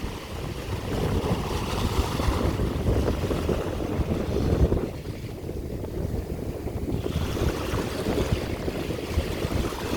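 Sea surf washing in and breaking, with wind buffeting the microphone as a low rumble. The hiss of the surf eases about five seconds in and builds again about two seconds later.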